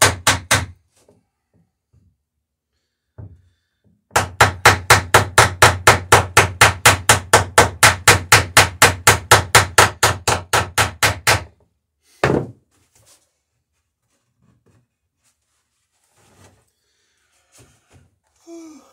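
Hammer peening a plank rivet on a lapstrake dory, in quick even blows about five a second. A short run of blows stops about a second in, and a long run goes from about four to eleven and a half seconds. A single knock follows soon after.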